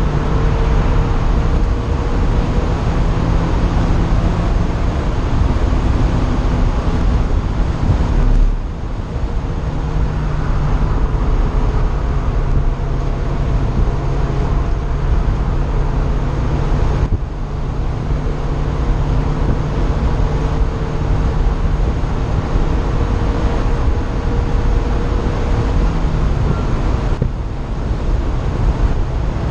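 Car engine at full throttle on a racing circuit, heard from inside the open-topped cockpit, its note slowly rising as it pulls through each gear, with three brief breaks about 8, 17 and 27 seconds in as the driver changes up. Wind rushes over the open roof.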